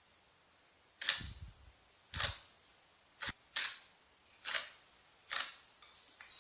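Glossy slime being squeezed and poked by hand, making a series of short pops and clicks, about six in all, roughly one a second.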